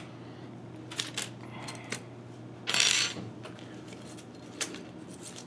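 Thin metal shim stock being pulled out from between a bearing housing and its mounting plate after the mounting bolts are loosened: a few light metallic clicks and clinks, with a short scraping rasp near the middle.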